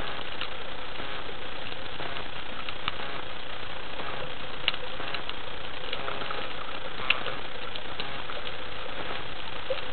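Underwater ambient noise picked up by a camera in a waterproof housing on the seabed: a steady hiss with a faint steady hum, broken by scattered sharp clicks and crackles, the loudest about five and seven seconds in.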